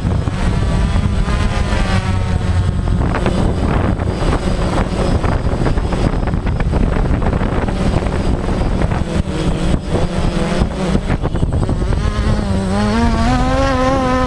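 Helicopter running steadily: a heavy rotor and engine drone, with wind buffeting the microphone. Near the end a wavering pitched sound rises and then falls over it.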